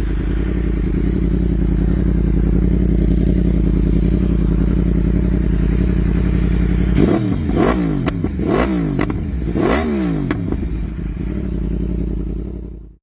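2016 Yamaha YZF-R1M's crossplane inline-four idling through an Akrapovič exhaust. About halfway through, it is revved in four quick throttle blips, each rising and falling in pitch, before it settles back to idle. The sound cuts off suddenly near the end.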